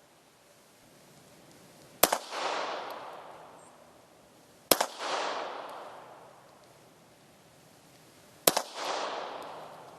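Three single shots from a Bulgarian Makarov 9x18mm pistol, a few seconds apart, each sharp crack followed by a long rolling echo.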